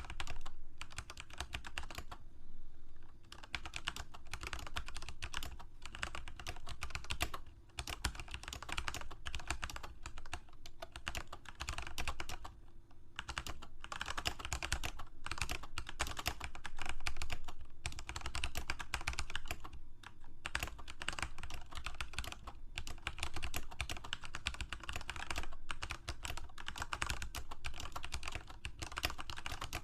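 Continuous typing on a computer keyboard: rapid runs of key clicks with brief pauses between bursts.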